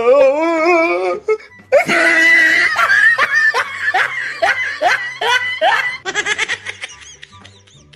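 Loud, drawn-out laughter in repeated rising and falling peals, turning into a quicker, higher giggle about six seconds in, over background music with a steady bass line.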